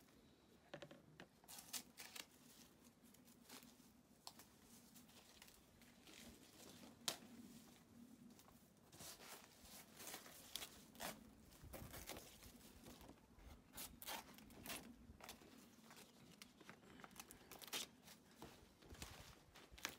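Faint tearing and rustling of banana leaves and dry banana-trunk fibre being stripped and cut by hand and knife, with scattered crackles and an occasional sharper snap.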